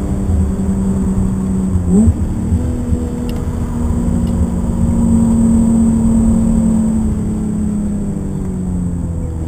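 A BMW car's engine and road noise heard from inside the cabin while driving on track. About two seconds in the revs climb quickly, then the engine holds a steady note and eases off a little near the end.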